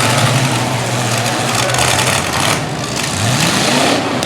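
Demolition derby trucks' engines running loudly amid a wash of noise, with one engine revving up, its pitch climbing, near the end.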